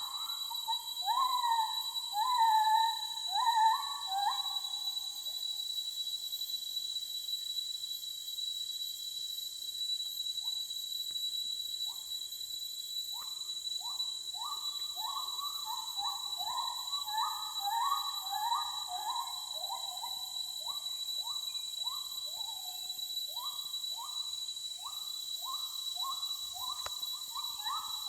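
An unidentified jungle animal calls in a long series of short notes that each sweep quickly upward, at about two or three notes a second. The calls come thickly at first, thin out for several seconds, then return as a steady run. Under them runs a steady high-pitched whine.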